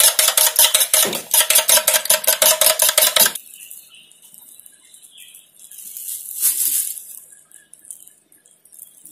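A utensil beating an egg mixture in a stainless steel bowl: rapid, even strokes, several a second, with a metallic ring. The beating stops a little over three seconds in, leaving only faint, scattered handling sounds and one brief swish.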